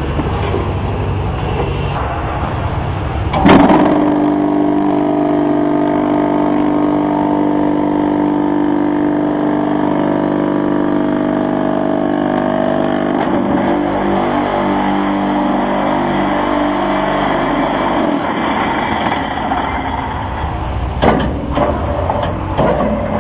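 Manual concrete block machine's vibration motor starting with a sudden jolt about three and a half seconds in, then running as a steady machine hum with rattle that breaks up and changes after about ten seconds. A few sharp metal knocks near the end as the mould and press are worked.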